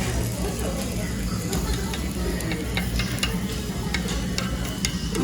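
Okonomiyaki batter and bacon slices sizzling on a hot tabletop griddle, with scattered small crackles and pops.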